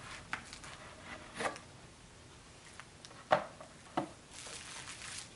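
Handling noise of a cardboard perfume box being slid from its sleeve and turned in the hands: scattered light knocks and rustles of cardboard and plastic wrapping, with a sharper knock about three seconds in and a brief crinkling rustle near the end.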